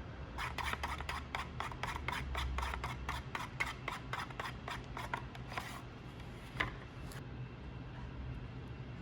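Rapid back-and-forth rubbing strokes of a hand abrading tool on a workpiece, about four a second for some five seconds, then a single sharp click.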